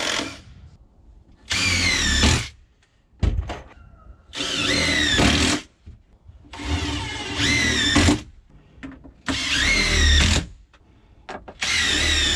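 Power drill driving screws into wood, in short runs about a second long, one every two to three seconds; in each run the motor's whine sags in pitch as the screw bites, with a few clicks between runs.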